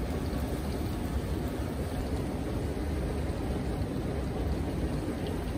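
Steady rushing of hot-spring water, an even noise with a low rumble underneath.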